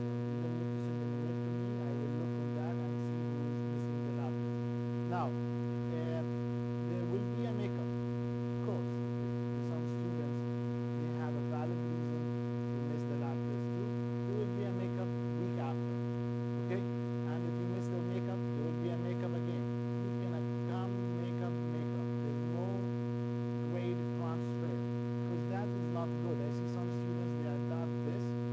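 Steady electrical mains hum: a low, constant drone with a ladder of higher overtones and no change in level.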